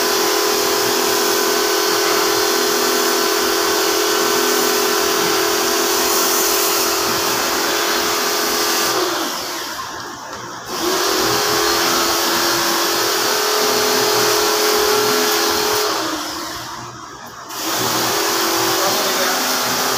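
Pressure washer running with a steady motor hum and the hiss of its water spray. It cuts out twice, about nine and sixteen seconds in, and each time starts up again with a short rising whine a second or two later, as when the gun's trigger is released and squeezed again.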